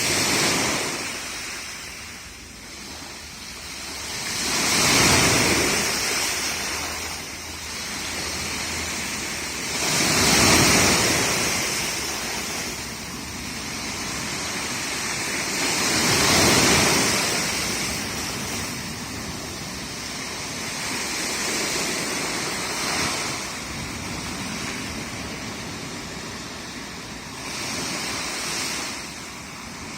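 Black Sea waves breaking and washing on the shore, each surge swelling and fading, the biggest about every five to six seconds.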